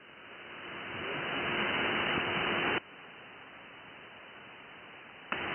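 Static from an Icom IC-705 receiving on the 20 m band in upper sideband, between contest stations. The hiss swells over the first couple of seconds and drops suddenly to a quieter hiss about three seconds in. It jumps back up near the end, with a faint steady low tone underneath.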